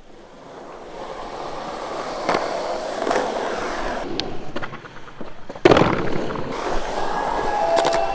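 Skateboard wheels rolling over rough concrete, growing louder as the board picks up speed. About five and a half seconds in comes one loud, sharp clack of the board hitting the concrete, and the rolling carries on after it.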